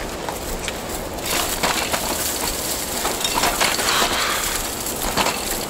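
Crunching and rustling of footsteps on rough, dry ground as a heavy bicycle is pushed and carried over it, with irregular clicks and rattles throughout.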